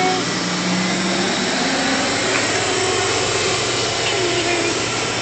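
Steady machine whir with a low hum, and a few faint short squeaks over it.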